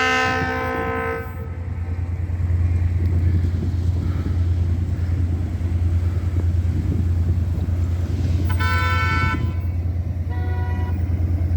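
Diesel locomotive horn sounded for a grade crossing: a long blast that ends about a second in, then two shorter blasts about eight and a half and ten seconds in, the second fainter. A steady low rumble runs underneath.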